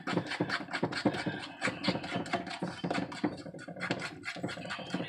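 A fork beating egg and flour dumpling dough in a mixing bowl: rapid, uneven scraping clicks of the tines against the bowl.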